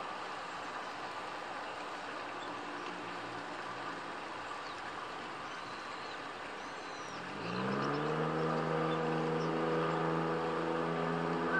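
Steady background hum of motor traffic; a little past halfway an engine rises in pitch, then holds a steady, louder drone. A few faint high bird chirps come just before the rise.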